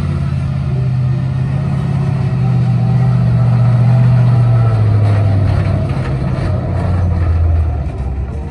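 Monster ride truck's engine running as the truck drives past, loudest about halfway through as it comes closest, its low note dropping in pitch and fading as it pulls away.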